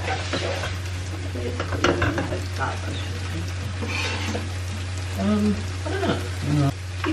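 Food sizzling in a frying pan while being stirred, with scattered clicks of the utensil against the pan, over a steady low hum.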